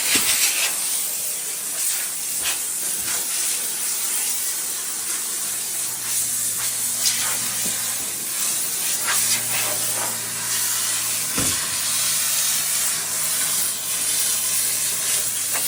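Steam cleaner jet hissing steadily, with a few light knocks, as the refrigerator is cleaned. A low steady hum comes in about five seconds in.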